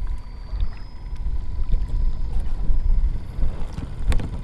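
Wind buffeting the microphone: a gusting low rumble, with one sharp click near the end.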